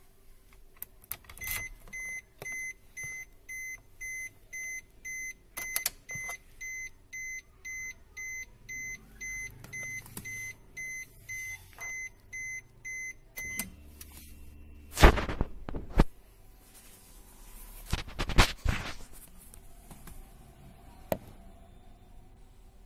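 A car's key-in-ignition warning chime, a steady electronic beep repeating about twice a second. It starts just after the key goes into the ignition switch and stops after about twelve seconds. Then come a few loud sharp clicks and knocks as the key is handled and turned.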